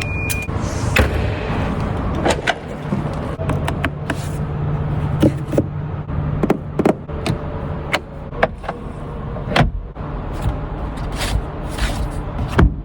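Ferrari 296 GTB's twin-turbo V6 idling steadily, with many short sharp clicks and knocks over it.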